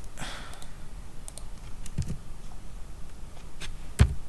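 Computer keyboard keys pressed a few separate times, with scattered sharp clicks; the loudest, heavier strike comes near the end. A short soft rush of noise comes right at the start.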